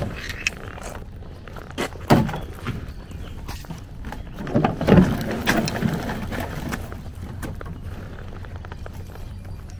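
Knocks, thumps and scraping of a folding boat being handled and put into the water, with two louder thumps about two and five seconds in and small clicks between.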